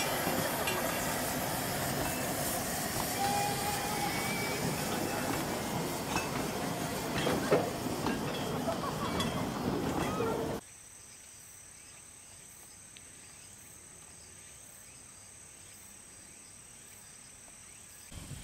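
Narrow-gauge open passenger wagons rolling past on the track, wheels clattering and clicking over the rails. About ten seconds in the sound cuts off abruptly to quiet outdoor ambience.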